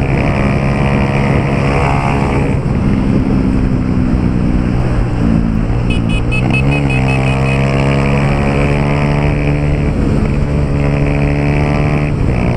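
Honda CG Titan 150's single-cylinder engine running loud through an aftermarket Pro Tork exhaust while riding, the exhaust note dropping and climbing back up a few times as the throttle changes.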